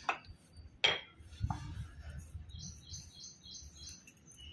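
A single sharp clink of steel kitchenware about a second in, with a softer knock shortly after, then a small bird chirping in the background, about five quick high chirps in a row.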